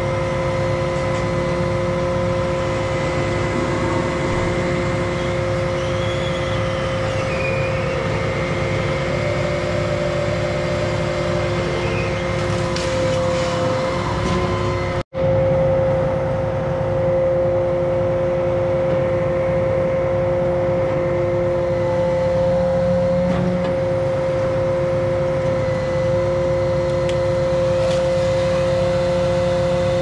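Crane truck's engine running steadily while the boom and grapple saw are worked, with a steady high whine over a low rumble. The sound breaks off for an instant about halfway through.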